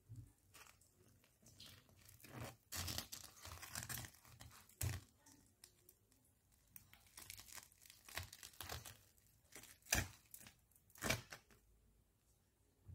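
Crisp breadcrumb-coated fried potato rolls being handled and lifted in a frying pan: irregular crackling and scraping of the crunchy crust against the pan, with two sharp knocks near the end.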